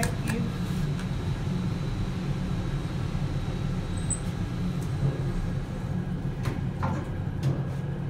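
KONE traction elevator car in service, heard from inside the cab: a steady low hum and rumble, with a button click at the start and a few light clicks about six and a half to seven and a half seconds in.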